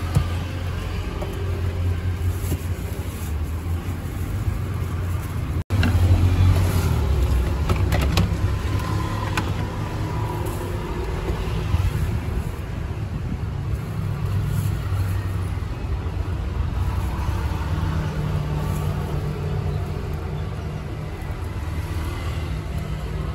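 Steady low rumble of road traffic. The sound breaks off for an instant about six seconds in and returns louder.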